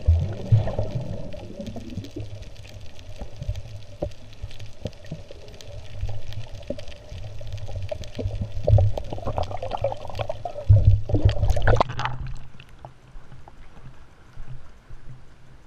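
Sea water sloshing and bubbling around a camera held at the surface, heard mostly underwater with heavy low thumps from swimmers' strokes and kicks; about twelve seconds in the camera comes up out of the water and the sound drops to quieter lapping.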